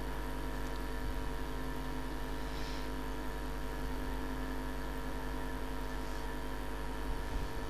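Steady drone of a vehicle driving slowly on an unpaved roadbed: an even engine hum over a low rumble from the tyres and road.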